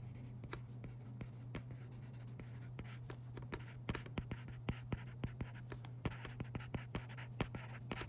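Stylus writing by hand on a tablet's glass screen: a run of small taps and scratches, coming thicker about halfway through, over a steady low hum.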